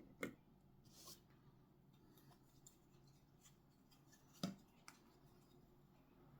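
A few short, sharp clicks and snips from hands working on small 3D-printed plastic parts, the loudest about four and a half seconds in, over a quiet room.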